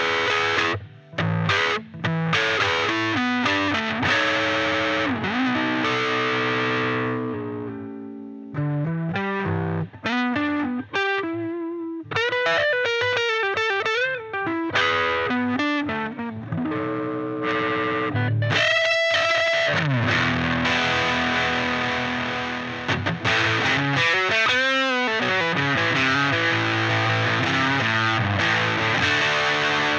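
Electric guitar played through a UOZ BB-1 'British Booster' booster/preamp pedal and a miked small combo amp, giving an overdriven, crunchy tone. It opens with short chord stabs, then ringing held chords, then a single-note lead phrase with string bends and vibrato in the middle, and from about two-thirds of the way in, sustained distorted chords.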